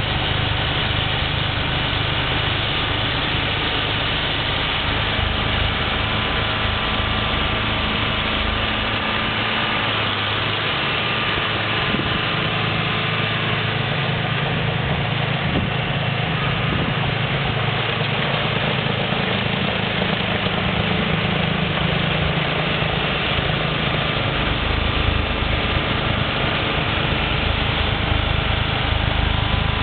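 John Deere 4450 tractor's six-cylinder diesel engine running steadily while it drives a Red Devil snowblower, the engine note shifting a little about a third of the way through and settling back later.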